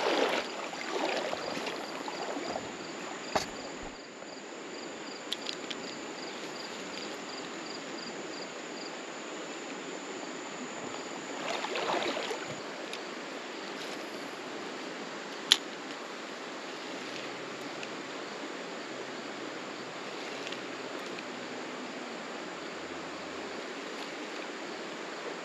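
Steady rush of shallow river water flowing over rocks, with a couple of sharp clicks and a brief louder swell about twelve seconds in.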